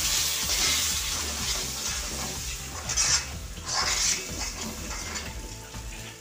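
Vinegar hitting hot chilli masala and oil in an iron wok, sizzling and hissing, while a spoon stirs and scrapes the pan. The sizzle is loudest at first and dies down, with a couple of louder scrapes about three seconds in.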